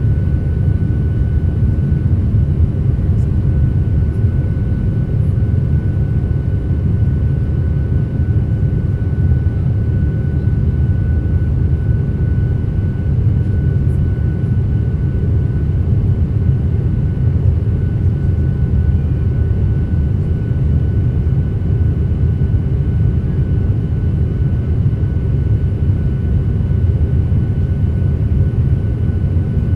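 Airliner cabin noise: a steady, dense low rumble of engines and airflow, with a faint steady whine above it.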